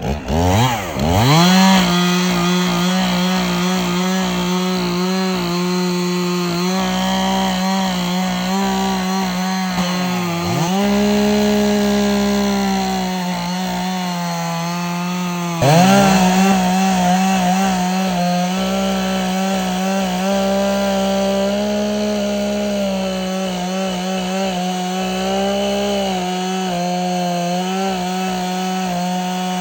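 Stihl two-stroke chainsaw revved up and cutting wood at full throttle. It revs up at the start, then runs at high speed, its pitch sagging twice under the load of the cut, about ten and fifteen seconds in, and picking straight back up.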